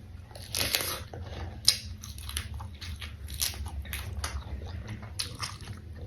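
Close-miked mouth biting and chewing raw chili leaves, with irregular wet crunches several times a second and a sharp crunch about two seconds in. A low steady hum runs underneath.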